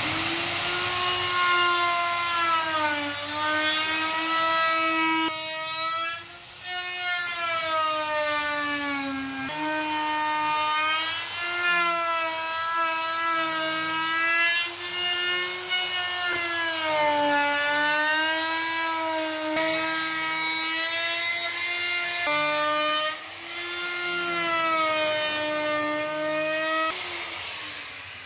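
Handheld electric router running and cutting grooves into a hardwood board, a steady high whine whose pitch rises and falls as the bit is fed through the wood. The whine drops out briefly twice, about six seconds in and near twenty-three seconds.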